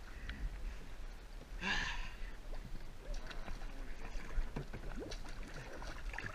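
Water sloshing and dripping around a kayak and its paddle in shallow pond water, close to the camera, with small splashes, plinks and knocks throughout and one louder rush of splashing about two seconds in.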